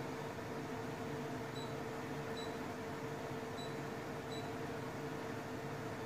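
Honeywell HL14CESWW portable air conditioner running with a steady hum and fan noise. Four short high beeps sound, the first about one and a half seconds in: the unit acknowledging setting changes sent from its remote control.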